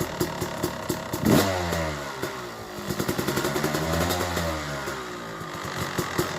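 2008 Yamaha YZ250 two-stroke engine with a 285 big bore kit and APT Smartcarb carburettor, idling and revved twice in neutral: a sharp blip a little over a second in that drops straight back, then a slower rev that rises and falls, returning to idle.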